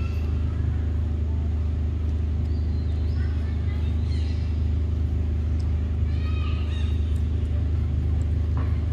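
A steady low rumble, with a few short, high, pitched calls over it about three to four seconds in and again around six to seven seconds in.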